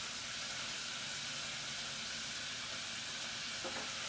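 Battered chicken wings frying in hot oil, a steady sizzle.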